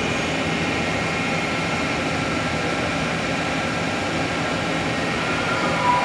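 Steady mechanical hum and hiss of powered-up machine-shop equipment, with faint steady whining tones and no clear strokes or changes.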